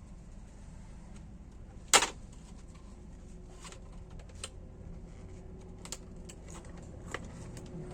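Laptop screen assembly being pressed and adjusted by hand: scattered clicks and taps, with one loud sharp click about two seconds in.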